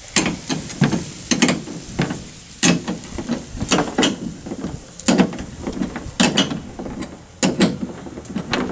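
Steel chain and turnbuckle clinking as the turnbuckle is turned tight with a wrench against the truck bed: irregular sharp metal clicks and clanks, roughly one or two a second.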